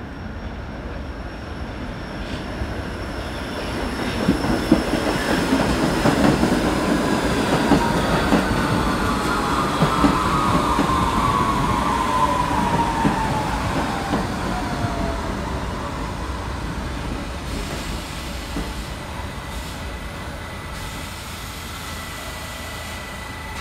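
New York City subway train running past the platform, its wheels rumbling and clattering on the rails, loudest from about four seconds in until about fourteen. Over this a high squeal slides steadily down in pitch and fades out, and the rumble then dies away.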